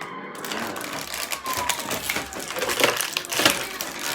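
Plastic toy packaging crinkling and crackling as it is handled and opened, with a run of small clicks and snaps.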